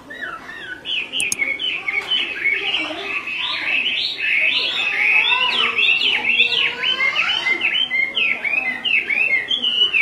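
Chinese hwamei (melodious laughingthrush) singing: a fast, unbroken stream of varied whistled notes that swoop up and down, louder from about a second in.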